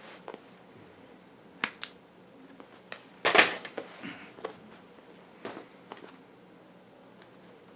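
Hand tools and wiring handled on a tabletop: two sharp clicks, then a louder clatter about three seconds in, which fits pliers being set down on the table, then a few lighter taps.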